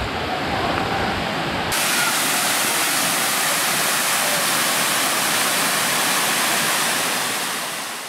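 Waterfall rushing: a steady, even wash of falling water. About two seconds in it switches abruptly to a brighter hiss without the low rumble, then fades out near the end.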